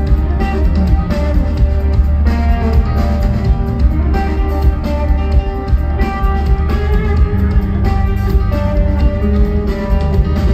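Live rock band playing: guitar lines over a steady drum beat and heavy bass, with no singing.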